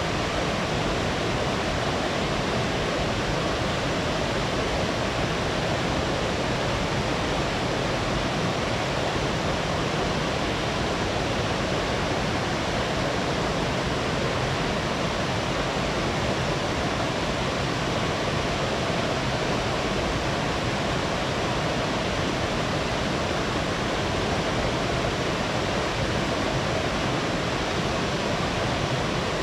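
Small waterfall on a mountain stream: water falling and rushing in a steady, unbroken roar.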